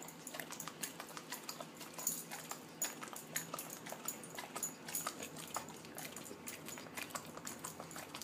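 A dog smacking its lips and tongue in a quick, irregular run of clicks as it works peanut butter around its mouth.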